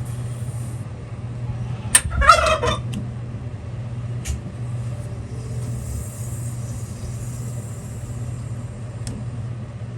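A steady low motor hum throughout. About two seconds in there is a click, followed by a brief pitched call lasting about half a second. Later a faint high hiss comes and goes.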